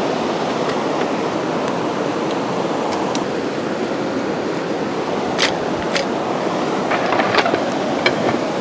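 Steady outdoor rushing noise throughout, with a few sharp clicks and knocks from about halfway in as the wooden frame and slats of a roll-top camping table are handled and set in place.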